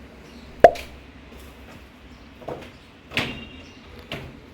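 A sharp knock, then three softer knocks and clatters spread over the next few seconds, like household objects or a door being handled.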